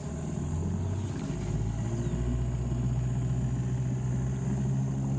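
Small river boat's motor running steadily with a low hum, rising slightly in pitch and loudness during the first second.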